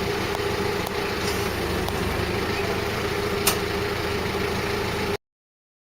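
A motor running steadily with a low hum and a steady mid-pitched tone, with one sharp click about three and a half seconds in; the sound cuts off suddenly about five seconds in, leaving silence.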